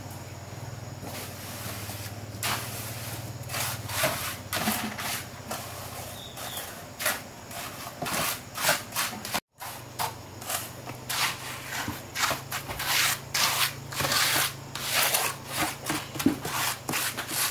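A hand tool scraping and rubbing over cement and brick in short, irregular strokes. The strokes come faster after a brief dropout about halfway. A steady low hum runs underneath at times.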